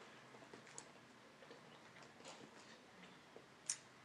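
Near silence with a few faint ticks of a plastic fork picking fries out of a paper wrapper, and one sharper click near the end.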